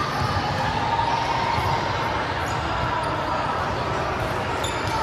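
Indoor volleyball game sound in a large hall: ball and play noise with a few short squeaks over a steady background of voices.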